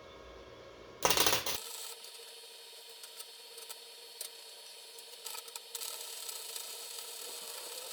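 Wire-feed welder: the arc strikes with a loud burst about a second in, then keeps up a steady crackling hiss with scattered pops as a weld bead is run.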